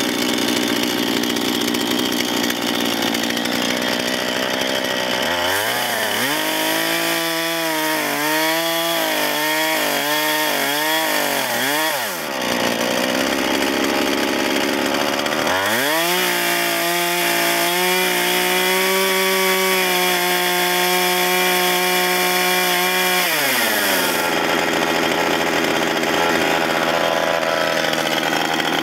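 Chainsaw running fast while making the felling cut behind the notch in a trunk. Twice, for several seconds each, the engine's pitch drops as the chain bites into the wood: the first time it wavers up and down, the second time it holds steadier. Between and after the cuts the saw revs freely.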